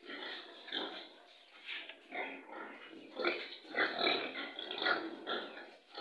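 Domestic pigs grunting at close range, a quick, irregular string of short grunts, several a second.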